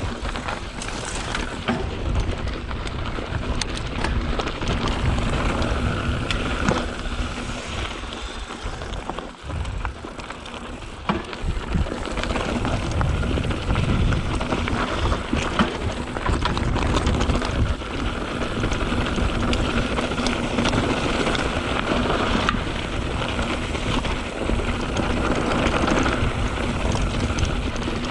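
2021 Canyon Spectral 7 mountain bike riding over a loose, rocky dirt trail: a continuous rush of tyre and trail noise with frequent knocks and rattles from the bike over rocks.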